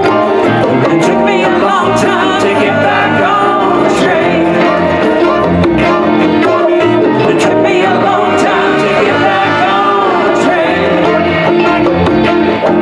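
Live rock band playing a song: electric and acoustic guitars, saxophone and drums, with a steady beat.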